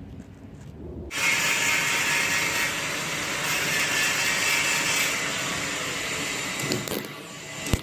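Welding arc crackling and hissing, striking up suddenly about a second in, burning steadily and stopping about seven seconds in, followed by a sharp click.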